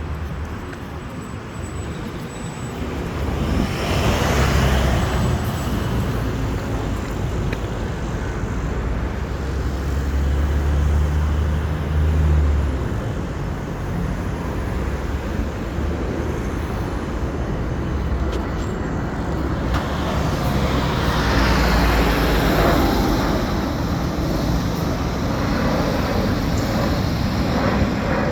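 Road traffic: a steady low rumble with vehicles passing, two of them swelling up and fading away, about four seconds in and again past the twenty-second mark.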